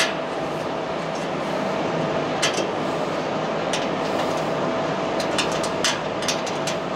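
Steady rushing noise with a constant hum, like a machine running, over scattered light clicks and taps from hands working a steel pickup-bed fender, a quick cluster of them about five to six seconds in.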